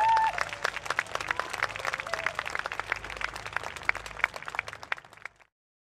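Crowd of spectators applauding, with many hands clapping and one short call rising and falling at the start. The applause fades out about five seconds in.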